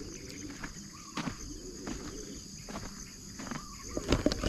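Evening insect chorus, a steady high-pitched drone of crickets, with a few scattered thumps that grow louder near the end.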